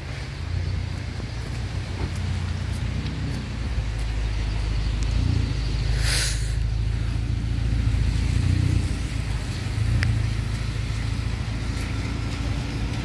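Low rumble of car engines and traffic in a wet car park, with one short hiss about six seconds in.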